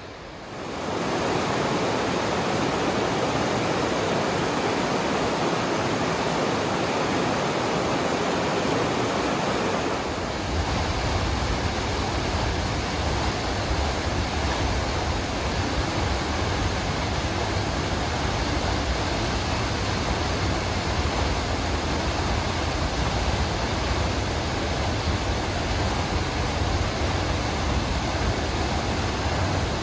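Waterfall rushing, a steady roar of falling water. About ten seconds in the sound changes and a deeper rumble comes in, as a tall waterfall beside the trail is heard up close.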